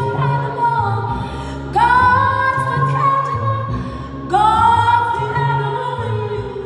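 A woman singing long held notes, two of them sliding up into pitch, over a plucked upright double bass playing a repeating low line.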